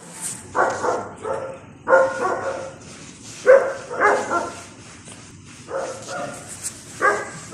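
Dogs barking repeatedly: about ten short barks, mostly in quick pairs, spaced a second or so apart.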